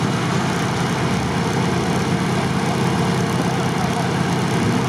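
Short-wheelbase Nissan Patrol Y61 engine idling steadily while the truck sits in deep water, exhaust at the water's surface.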